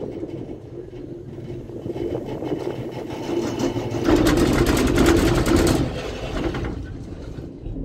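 Cable car cabin riding along its haul cable: a steady mechanical hum and rattle that swells into a louder rushing noise with a deep rumble from about four to six seconds in, then settles back.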